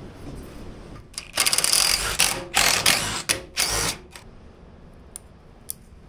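Hand tools worked on a small mower engine: a series of short rasping, ratchet-like runs over about two and a half seconds, then two sharp clicks near the end.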